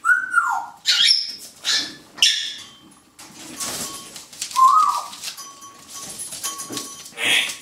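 Poodle puppies yipping and squealing as they play-fight over a plush toy. A falling whine comes at the start, several short high squeaks follow over the next two seconds, and another short yip comes about halfway through, with scuffling in between.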